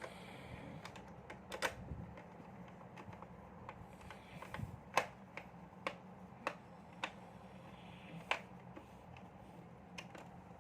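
Irregular light clicks and taps of hard plastic toy parts being handled, over a faint steady low hum.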